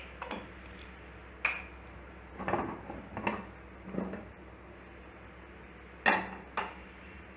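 Metal clinks and knocks from a stainless steel pressure cooker as its weight and lid are taken off once the pressure has dropped: about six separate knocks spread over several seconds.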